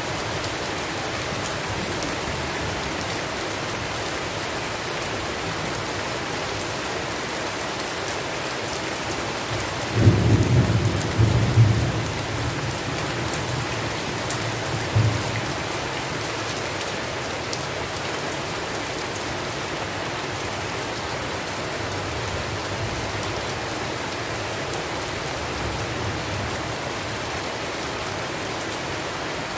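Steady rain falling, with a short roll of thunder about a third of the way in and a smaller rumble a few seconds later.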